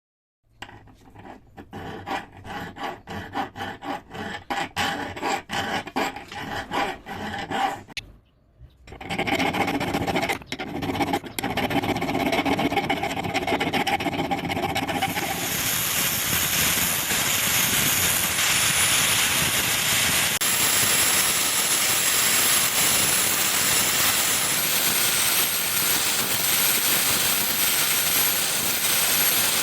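Rasping back-and-forth strokes of hand work, about two a second, then after a short pause a steady, even rasping noise that carries on to the end.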